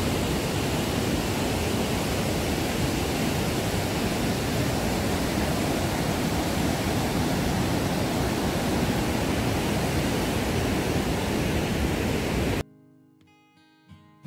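Niagara River rapids rushing loudly and steadily below a bridge, an even rush of white water with no break. It cuts off suddenly near the end, replaced by quiet plucked-guitar music.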